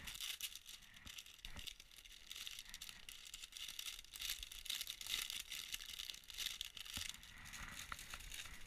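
Clear plastic bag of soft-plastic fishing lures crinkling and rustling as it is handled and opened, with a couple of light knocks.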